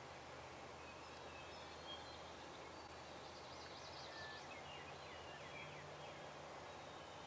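Faint dawn birdsong over a steady low hum, with a distant wild turkey gobbling, a quick rattling call about three seconds in.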